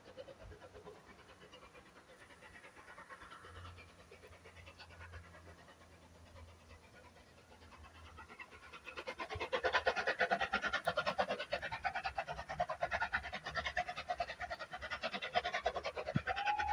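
Steam locomotive working hard as it approaches, its exhaust beats coming as rapid, loud chuffing from about nine seconds in. A whistle starts right at the end.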